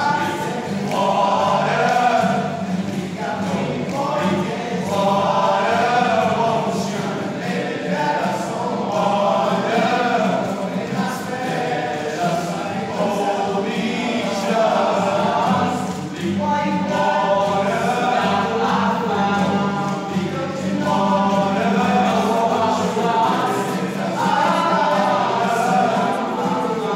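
Men's choir singing a song in close harmony, with a steady low note held underneath the melody.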